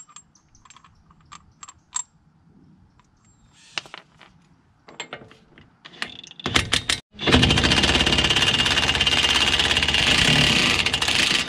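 Light clicks of a 30 mm socket being fitted onto a DeWalt cordless impact wrench, then the wrench hammering on a front axle nut: a short burst about six and a half seconds in, then steady hammering for about four seconds as it breaks the big axle nut loose and spins it off.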